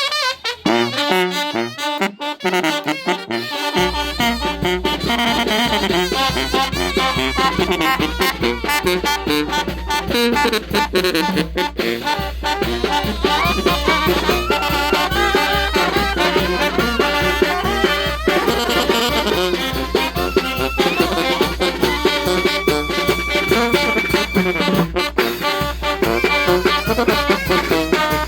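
Brass band playing a ranchera, with trumpets, trombones and saxophones carrying the melody; a deep bass comes in about four seconds in and holds under the tune.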